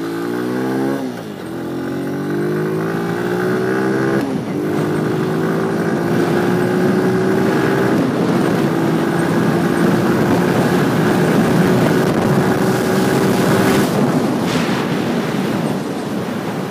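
Motorcycle engine pulling away and accelerating through the gears: its pitch climbs, then drops at upshifts about one second and about four seconds in. It then runs at a near-steady pitch until the throttle is eased off near the end, leaving wind rush.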